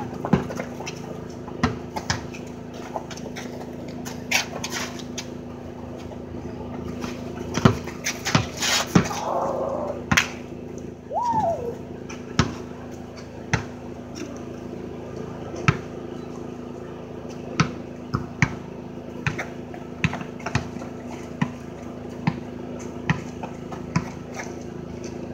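Basketball bouncing on a paved driveway: sharp single bounces, scattered at first, then dribbled steadily at a bounce every second or less through the second half.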